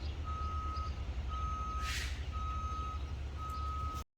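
A vehicle's reversing alarm beeping, a single steady tone about once a second, over a low engine rumble. There is a short hiss about halfway through, and everything cuts off abruptly near the end.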